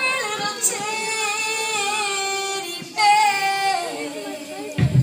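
Recorded music playing for a dance routine: a woman's voice sings long held notes with vibrato in two phrases, without clear words, then a steady bass beat kicks in sharply near the end.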